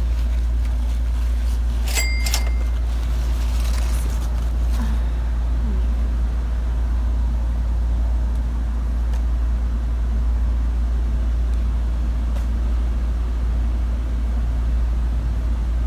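Steady low rumble, with faint rustling of packaging as a succulent is unwrapped and a brief scratchy sound about two seconds in.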